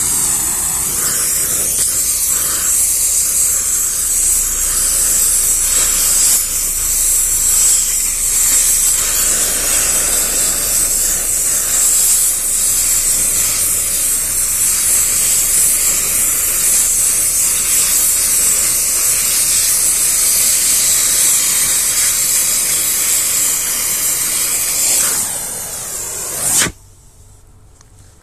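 Oxy-propane cutting torch hissing steadily while it cuts into a steel mower gearbox and pulley, throwing sparks. The hiss cuts off suddenly near the end.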